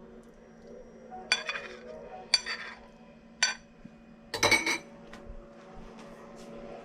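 Metal cutlery clinking against a dish, four sharp clinks about a second apart, the last a short cluster.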